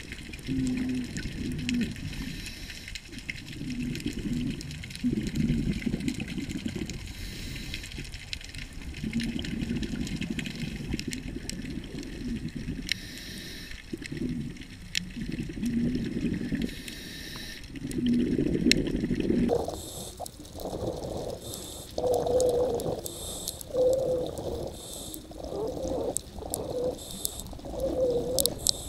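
Scuba regulator breathing heard underwater: slow cycles of inhaling through the regulator and exhaling rushing bubbles, every few seconds, with a low steady note in each breath. About two-thirds of the way in the sound shifts to quicker pulses with a higher note.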